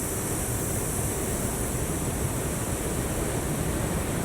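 Ocean surf washing in a steady, even rush of waves.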